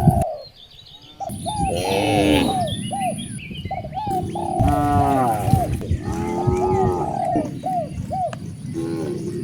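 Cattle mooing: about four long, low calls, one starting at about one second, two close together in the middle and one near the end. Short chirping calls repeat in the gaps between them.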